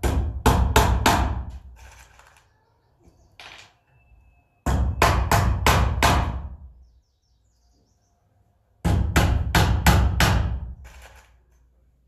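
Claw hammer driving nails into a wooden board: three bursts of quick, sharp blows, four to six strikes in each, with pauses between as the next nail is set.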